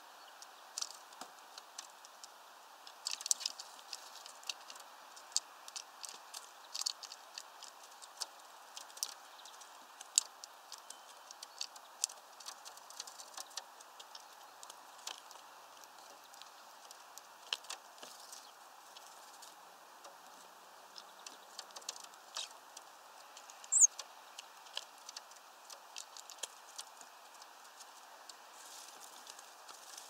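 A bird pecking at a fat ball in a wire spiral feeder: irregular sharp taps and clicks, some in quick clusters, over a steady hiss. One short high squeak about two-thirds of the way through is the loudest sound.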